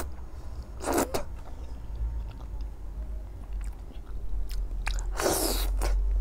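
Close-miked eating sounds: a person chewing and biting fried food, with small wet clicks. Two louder noisy bursts as food is drawn into the mouth, a short one about a second in and a longer one near the end.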